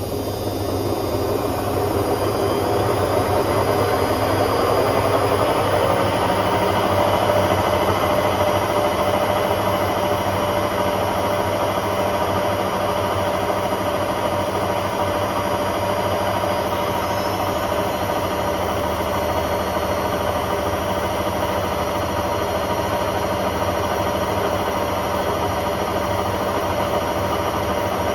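Hotpoint Aquarius WMA50 washing machine spinning up on a cotton 40 wash: the drum motor's whine rises in pitch and loudness over the first several seconds, then holds steady at full spin speed with a loud hum and rumble.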